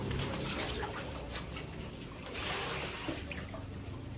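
Shallow muddy water splashing and trickling as people wade and grope by hand among stones, with a few small splashes and knocks.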